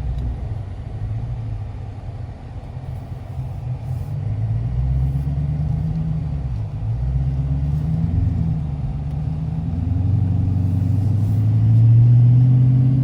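Dodge Challenger R/T's V8 engine running with a low rumble, its pitch rising and falling as the throttle is worked, loudest near the end.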